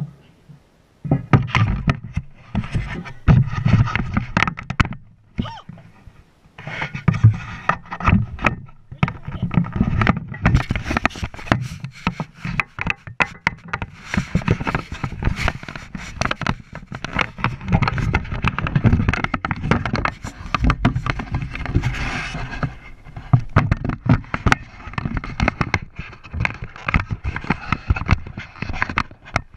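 Wind buffeting and bumps on the microphone of a camera mounted on a Honda ATV riding over grass, starting about a second in, with a brief lull a few seconds later.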